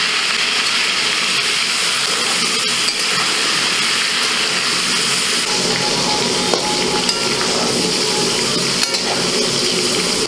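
Cubed potatoes frying in oil in a large metal wok, a steady sizzle throughout. From about halfway, a metal spatula stirring them adds a few clicks and scrapes against the pan.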